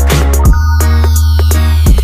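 Electronic background music with a heavy bass line and strong drum hits, and a falling synth sweep through the second half.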